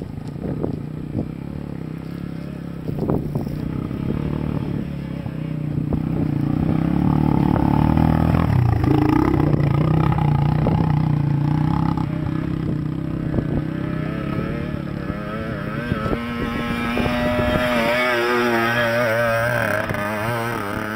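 Small dirt bike engines running as the bikes climb a rocky trail, the revs wavering up and down in the last few seconds as a bike comes close.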